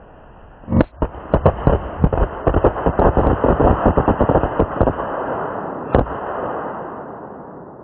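Cannonball firework going off: a bang about a second in, then a rapid string of firecracker cracks for about four seconds, a last crack near six seconds, and a fading tail.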